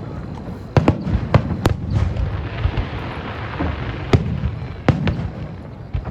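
Aerial fireworks bursting: a string of sharp bangs over a constant low rumble, with a crackling hiss in the middle between the bangs.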